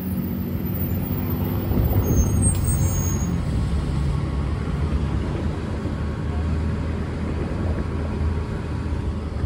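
A transit bus's engine running close by, a steady low drone.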